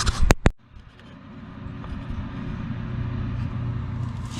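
Two sharp clicks right at the start, then a steady low rush and hum of a swamp cooler's fan blowing air across the microphone.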